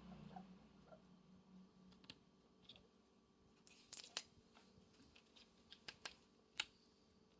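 Faint, scattered sharp clicks and taps, a handful spread over several seconds with the loudest near the end, over a low hum that fades out in the first two seconds.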